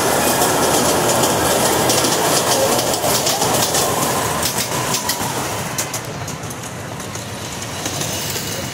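Amusement-park ride train rolling along its track: a steady rumble of the cars with irregular clicking of the wheels over rail joints, getting quieter about six seconds in.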